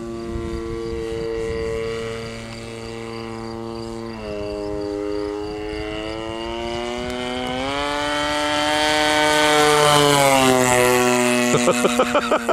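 RC biplane's RCGF 26cc two-stroke gas engine in flight, passing on a flyby. Its pitch steps up about four seconds in and again near eight seconds, it is loudest about ten seconds in, and then its pitch falls as it goes by. A quick run of sharp knocks comes near the end.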